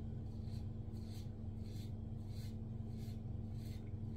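Double-edge safety razor scraping through lathered stubble in short strokes, roughly one every half second, over a steady low hum.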